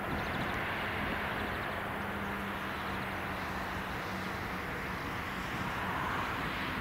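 Boeing 787-9's twin turbofan engines at takeoff thrust during the takeoff roll: a steady, even jet noise.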